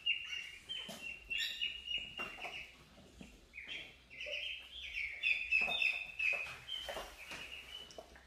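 A group of ducklings peeping: many short, high chirps throughout, often several overlapping.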